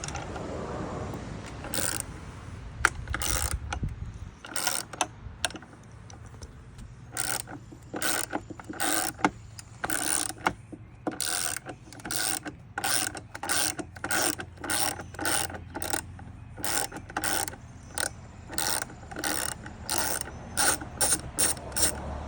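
Hand ratchet with a T45 Torx bit clicking in short, repeated strokes, about two a second, as it backs out a bolt.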